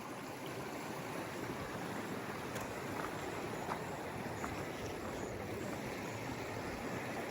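Flowing stream water, a steady even hiss of current running over rocks, with a few faint clicks.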